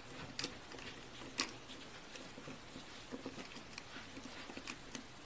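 Faint, scattered small clicks and rattles of a drill bit being handled and fitted into an electric nail drill's handpiece, with one sharper click about a second and a half in.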